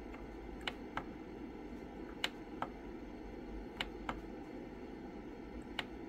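Push buttons on a Takeuchi TB215 mini excavator's control panel pressed one after another, each press giving a pair of small clicks, four presses about a second and a half apart. It is a key test after the keys were replaced, and they respond without fault. A steady low hum runs underneath.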